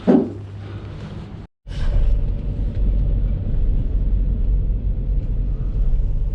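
Van engine running with a steady low rumble as it drives, after one brief loud sound right at the start and a short break in the sound about a second and a half in.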